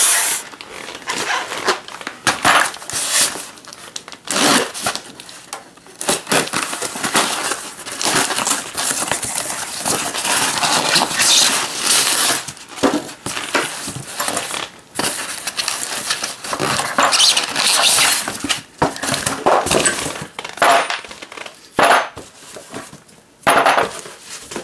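Cardboard box and styrofoam packing being opened and pulled apart by hand, a busy run of rustling, scraping and crackling with sharp clicks.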